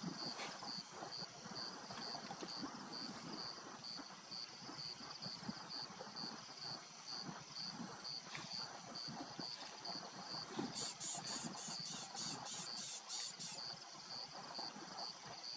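Evening insects chirping: a high chirp pulsing about three times a second, over a steady high hum. From about 11 to 13 seconds in, a second, higher pulsing call joins in.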